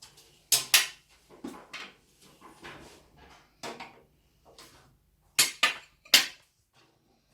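Sharp clicks and clatters of hard metal and plastic computer parts being handled and fitted together during a PC build, a dozen or so separate knocks, the loudest paired ones about half a second in and again around five and a half to six seconds in.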